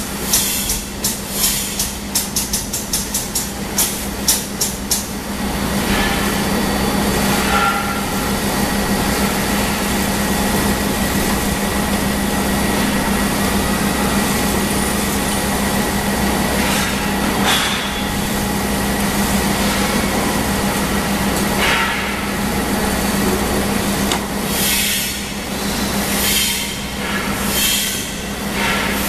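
BC560 toy filling line running: a steady blower hum with rushing air as fibre is blown through the filling nozzle into a plush toy. A quick run of sharp puffs in the first few seconds, and more bursts near the end.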